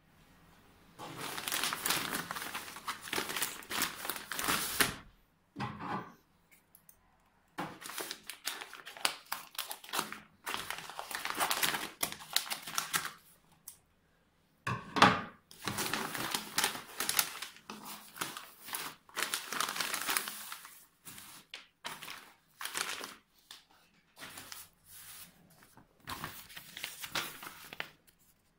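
Plastic courier mailer bag crinkling and rustling as it is handled and cut open with scissors, in stop-start bursts with short pauses between them. There is a sharper, louder crackle about fifteen seconds in.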